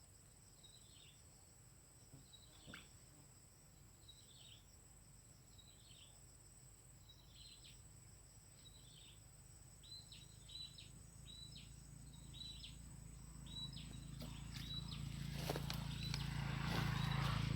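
A bird gives short, high, down-slurred calls about once a second, quickening toward the end, over a steady thin high insect whine. In the last few seconds, rustling and a few sharp knocks grow louder.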